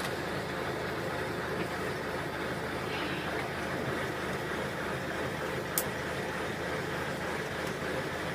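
Truck running, a steady engine and road noise, with one sharp click a little under six seconds in.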